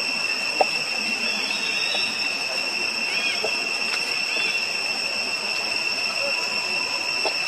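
Steady high-pitched drone of forest insects, with a few faint bird chirps and a single sharp click under a second in.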